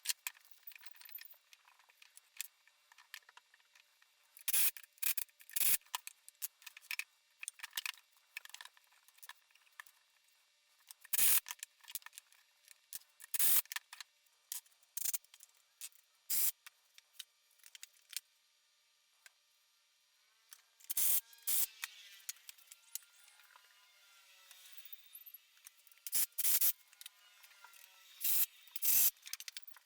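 Scattered sharp clicks and knocks of wood pieces and hardware being handled on a workbench. A faint whine rises and falls about two-thirds of the way through.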